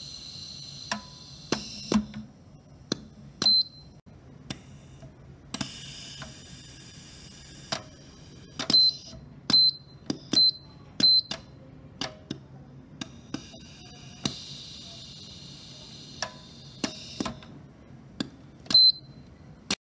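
Linear stage of a positioning-switch demonstration rig travelling and stopping at its forward and reverse ends: a string of sharp, irregularly spaced metallic clicks, several with a short high ring, and stretches of high hiss between some of them.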